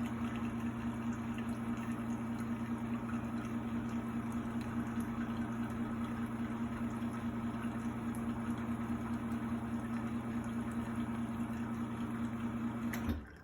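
Espresso machine's pump humming steadily while it pushes water through the coffee to pull an espresso shot, then cutting off abruptly near the end as the shot is stopped.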